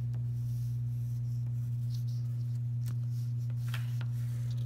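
A steady low hum throughout, with a few faint scratches of a black wax crayon being drawn across paper.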